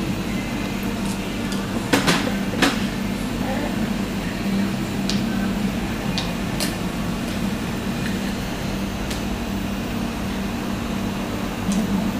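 Steady low machine hum with a few scattered sharp clicks and taps over it.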